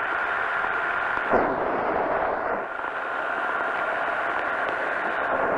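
Powered parachute engine and propeller running steadily in flight, with wind rumbling on the microphone and a sudden thump about a second and a half in.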